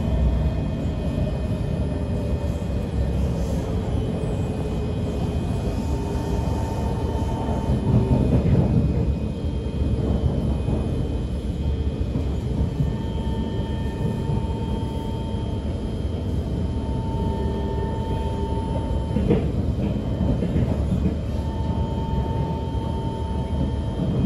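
C151 MRT train running between stations, heard from inside the car: a steady rumble of wheels on the track with the whine of the electric traction motors, several tones that shift in pitch and come and go.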